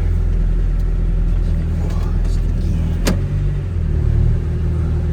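Vehicle engine idling steadily just after a hard start, left running to warm up. A single sharp click comes about three seconds in, and the engine's pitch shifts slightly soon after.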